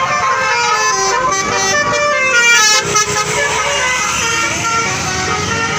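Bus 'telolet basuri' musical horn playing a tune, a run of quick notes stepping up and down in pitch.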